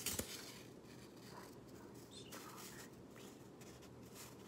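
Quiet room tone with a few faint small clicks and rustles.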